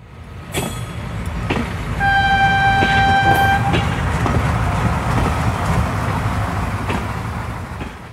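Train sound effect: a low rumble of a passing train with a few sharp clacks, and a single-note horn blast lasting about a second and a half near the middle, fading in at the start and out at the end.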